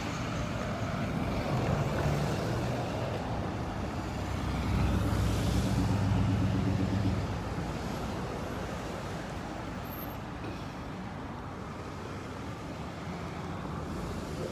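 Cars and trucks driving past in a slow line; one engine hum grows louder as it passes close, about five to seven seconds in, then fades back into the steady road noise.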